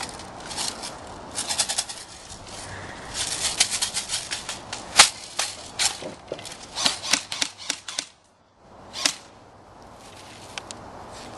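Airsoft rifles firing in several short bursts of rapid sharp clicks, with one louder single crack about halfway through.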